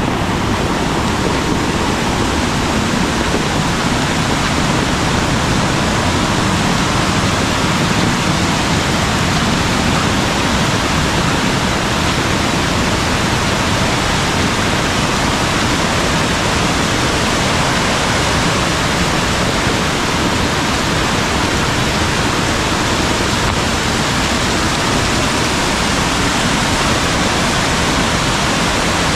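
Steady, loud rush of water from a mountain valley stream running in heavy rain.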